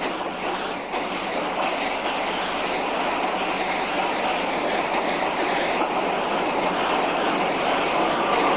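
Tram running along street track: a steady rattle of wheels on rails, growing a little louder toward the end.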